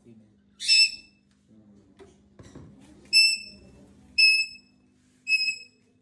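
Caged parrot giving four short, loud, high-pitched whistled calls about a second apart, the first harsher and more screechy than the rest.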